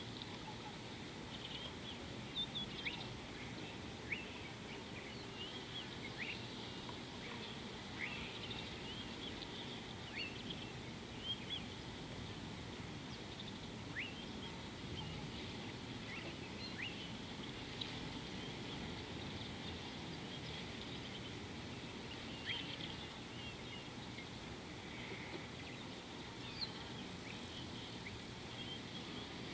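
Wild birds calling: scattered short, high chirps, many sliding quickly down in pitch, over a steady low background noise.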